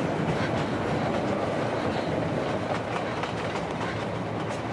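Subway train running, a steady rumble with the wheels clattering over the rail joints, heard from inside the car.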